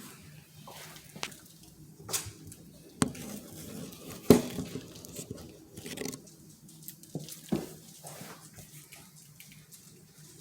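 Basset hound puppies playing with their toys: scattered knocks and clicks over soft rustling and wet, squishy mouthing, with the loudest knock about four seconds in.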